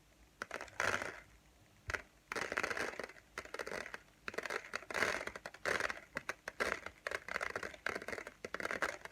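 Dry rice grains poured slowly from a hand onto a folded sheet of A4 paper, a dense patter of tiny ticks in uneven spurts with a brief lull early on, made as a foley imitation of rain.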